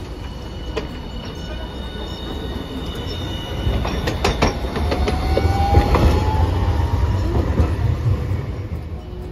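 Hiroden Green Mover LEX low-floor tram no. 1003 pulling out and rolling close past. Its low rumble builds to a peak about six seconds in, with a quick run of wheel clicks over the rails around four seconds in and a faint rising whine as it passes.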